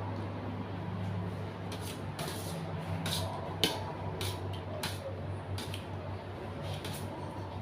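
A person eating hot-pot soup: a string of short wet slurps and mouth clicks, one sharper click about halfway through, over a steady low hum.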